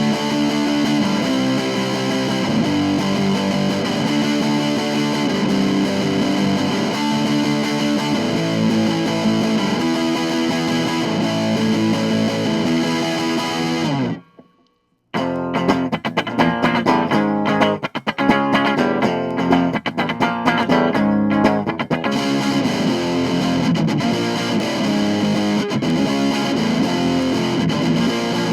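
Vintage 1970s Univox Hi-Flier Phase 3 electric guitar played through distortion: ringing chords, a sudden stop about halfway, then choppy staccato chords before sustained chords return.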